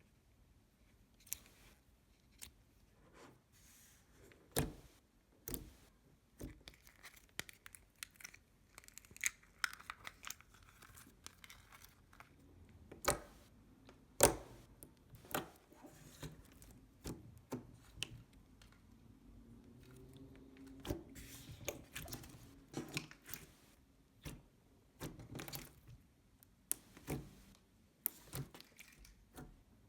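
Slime being squished and stretched by hand, giving off irregular sharp clicks and small pops with soft sticky crackling between them.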